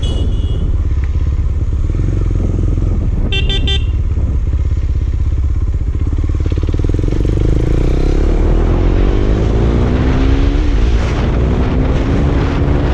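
KTM Duke 250's single-cylinder engine running through an exhaust with the dB killer removed, the bike under way. The engine pitch climbs from about six seconds in, drops sharply at a gear change near eleven seconds, then climbs again. A horn beeps briefly at the start and a few quick beeps sound about three seconds in.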